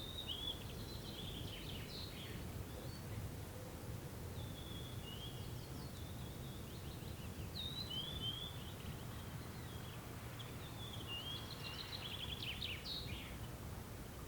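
A songbird singing three short song phrases of chirps and trills with quick falling notes, a few seconds apart, over a low steady background rumble.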